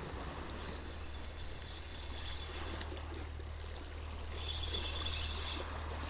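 Sea water washing and trickling against a rocky shore, over a steady low rumble.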